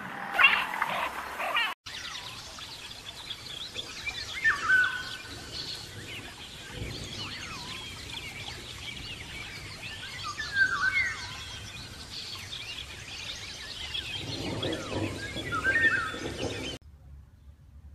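A brief sound in the first two seconds stops abruptly. Then songbirds call and chirp against a steady forest background, with a few clear whistled calls standing out, before the sound drops away near the end.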